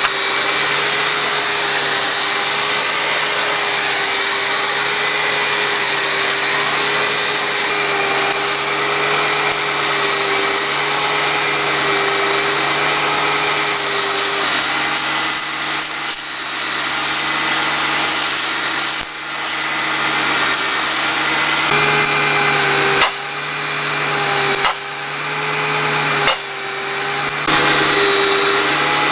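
Hitachi EX200 excavator's diesel engine and hydraulics running with a steady whine. In the second half the sound sags and then surges back sharply a few times as the machine is put under load.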